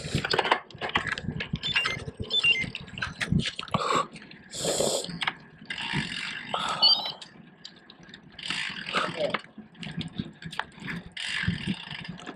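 Muffled voices with rustling and knocking handling noise from a hand-held camera.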